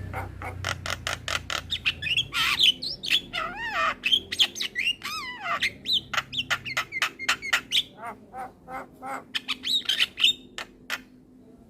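Male Javan myna (jalak kebo) calling: a fast run of sharp clicking notes mixed with squawks and wavering whistled glides, thinning out near the end.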